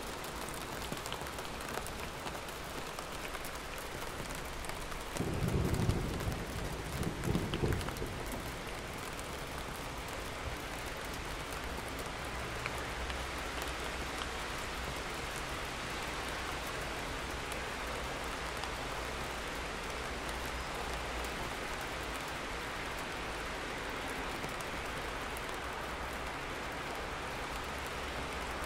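Steady rainfall, with a low rumble of thunder about five seconds in that swells twice over some three seconds and fades.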